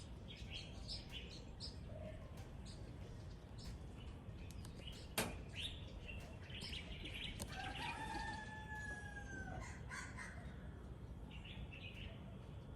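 Small birds chirping in short repeated calls, with a rooster crowing once about eight seconds in. A single sharp click comes about five seconds in.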